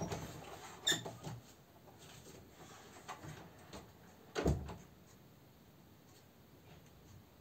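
An indoor door as someone leaves the room: a short high squeak about a second in with a few soft knocks, then a dull thud around four and a half seconds as it shuts.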